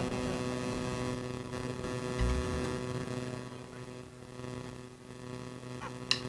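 Steady electrical mains hum from the band's sound system in a pause between songs, slowly fading. There is a brief low thud about two seconds in and a few sharp clicks near the end.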